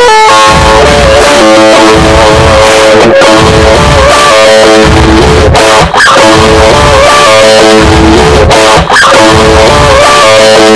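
Rock music: an electric guitar plays a lead line of sustained, bending notes over a bass line.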